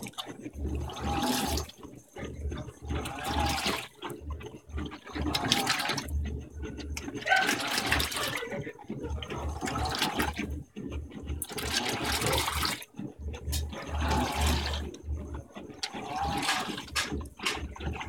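Electrolux LDD16 16 kg top-load washer agitating: water and clothes slosh in a steady back-and-forth rhythm, with a low motor hum on each stroke every second or two. This is the machine's unlocked agitation, with the basket left free to turn.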